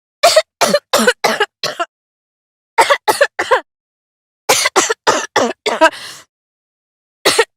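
A girl coughing in fits of short coughs: about five in quick succession, then three, then about six, with another fit starting at the very end.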